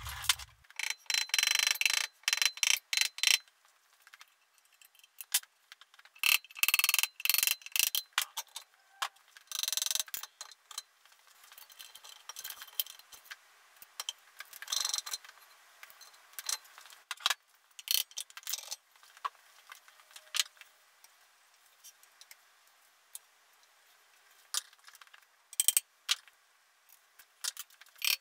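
Hand tools and metal axle parts clinking, clicking and rattling as they are handled: irregular clusters of metallic clatter in the first half, sparser single ticks later.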